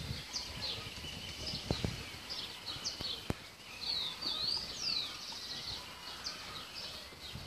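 Several birds chirping and whistling, many short calls rising and falling in pitch, over a low rumble of outdoor background noise, with a single sharp click about three seconds in.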